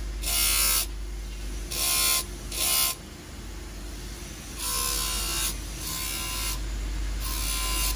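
Electric lapidary grinding wheel running steadily, broken by about five short bursts of hissing grinding as crystal tower points are pressed against it by hand to shape them.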